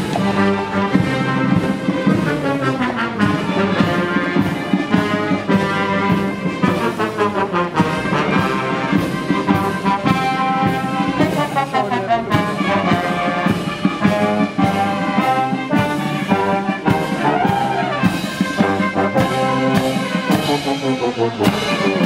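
Guards military brass band playing a march, with horns, trumpets and trombones over a steady marching beat and cymbal crashes.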